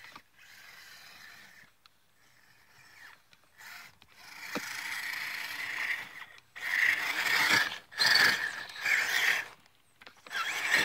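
ECX Barrage Gen2 RC crawler's electric motor and gears whining in bursts of throttle as its tyres churn through deep powdery snow. The bursts are moderate at first, then louder and in quick succession from about six seconds in, with short pauses between them.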